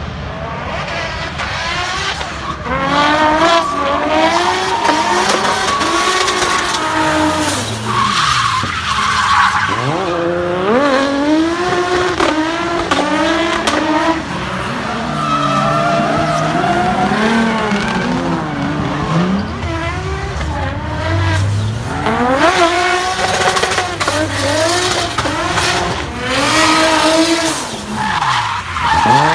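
800 hp turbocharged BMW E36 drift car at full throttle, its engine revving up again and again with deep dips in revs between slides, and its rear tyres squealing as it drifts.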